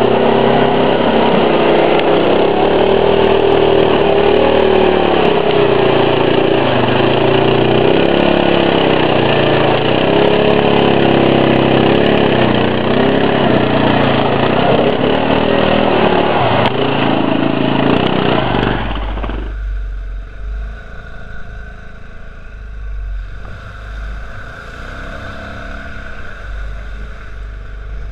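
Honda TRX680 ATV's single-cylinder engine running hard through mud, its pitch rising and falling with the throttle. About 19 s in, it cuts to a quieter ride where the engine is fainter under wind rumbling on the microphone.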